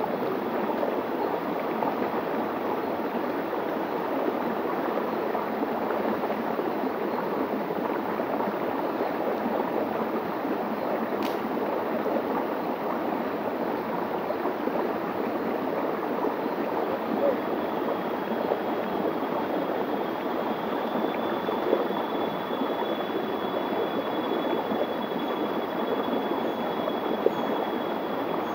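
Small rainforest stream running over a rock slab in little cascades: a steady rushing of water. A faint, thin high steady tone joins about halfway through.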